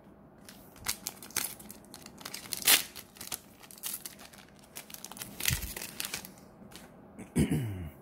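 Foil trading-card booster pack being torn open by hand: irregular crinkling and tearing of the wrapper, with the sharpest rip a little under three seconds in.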